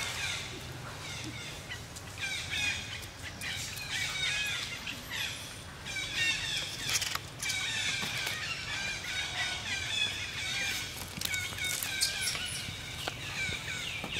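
Birds chirping: many short, quick calls overlapping throughout, with a few soft clicks.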